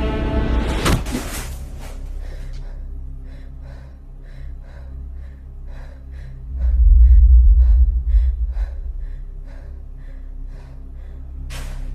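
Horror-film soundtrack: a woman's sharp gasp about a second in, followed by quick, quiet, rhythmic breaths about three a second. A deep low rumble swells up in the middle and is the loudest sound.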